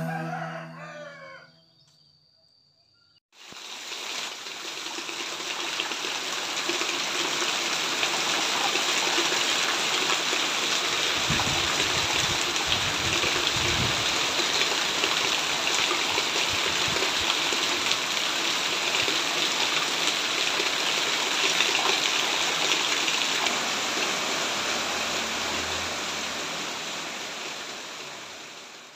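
Background music fades out, and after a short silence heavy rain starts pouring on garden foliage as a dense, even hiss that holds steady to the end. A few low thuds come through the rain near the middle.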